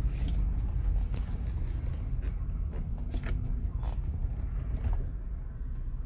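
BMW X5 E53's engine idling, heard as a steady low rumble inside the cabin, with a few scattered light clicks and knocks.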